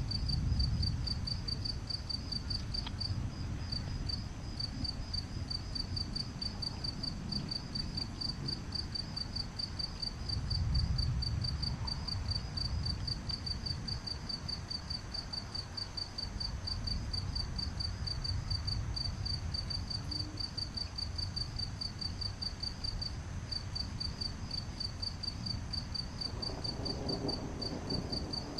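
Crickets chirping in a steady fast rhythm, with other insects trilling higher. A low rumble of distant thunder underneath swells twice, about a second in and again around eleven seconds.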